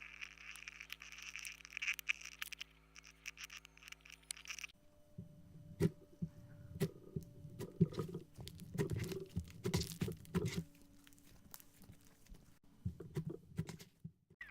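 Slime being handled: fine, crackly patter for the first few seconds, then after a sudden change, wet squishing and sticky clicks and pops as it is pressed and pulled.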